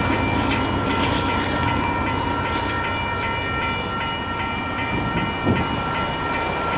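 Railroad grade-crossing warning bell ringing steadily with the signals still active. It stops near the end as the gates go up. Underneath is a low rumble from the train as it moves away.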